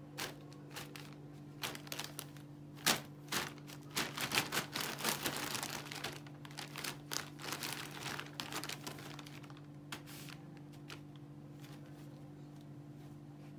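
Thin plastic shopping bags crinkling and rustling as a tabby kitten pushes its head into them and tussles with them, in irregular bursts that are busiest in the middle and die away near the end.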